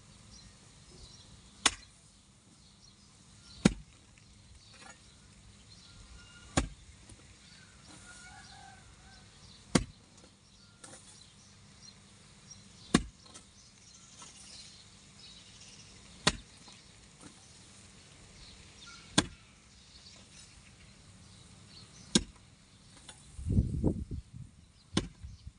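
A long-handled hoe striking into dry, grassy ground, one hard chop about every three seconds, nine in all, breaking ground for a planting bed. About two seconds before the end there is a short low rumble.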